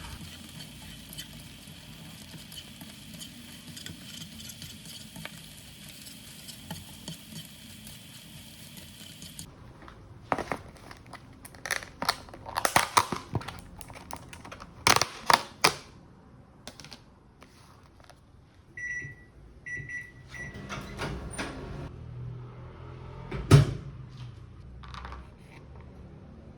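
A steady hum that cuts off after about nine seconds, followed by clattering like dishes and utensils being handled, a few short electronic beeps, and a loud thump near the end.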